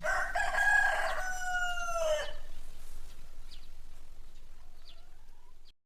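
Rooster crowing once: a single long cock-a-doodle-doo of about two seconds that ends in a falling note, followed by a few faint short calls.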